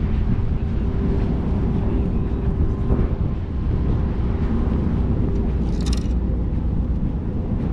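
Wind buffeting the microphone in a steady low rumble, with a faint steady hum beneath it and a brief high hiss about six seconds in.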